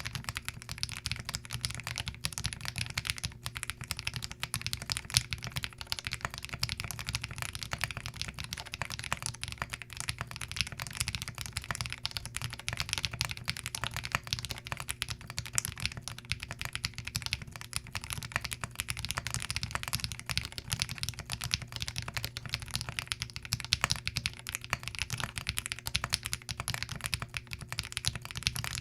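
Fast, continuous typing on a Zoom TKL mechanical keyboard fitted with Glorious Lynx linear switches, the keystrokes clacking in a dense, unbroken run.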